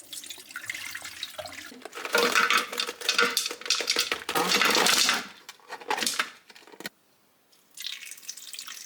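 Kitchen sink sounds: water sloshing and dripping while a bowl and dishes are handled and clink together in irregular bursts, with a short pause near the end.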